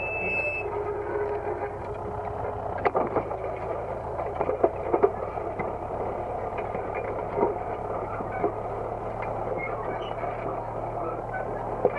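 Disc harrow working soil behind a Universal DT445 diesel tractor: the engine runs steadily under load while the discs and frame clatter. Sharp metal knocks come about three seconds in, several more around four and a half to five seconds, and one near seven and a half seconds.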